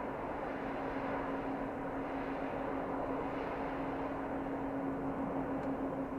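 Airbus A320 jet engines running steadily: a constant rushing noise with a steady hum, no rise or fall in pitch.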